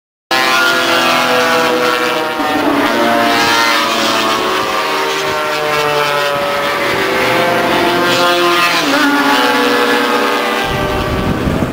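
Racing scooter engines revving on a circuit, their whine stepping down in pitch about two and a half seconds in and again near nine seconds. Near the end the sound changes abruptly to a fuller, rougher engine noise.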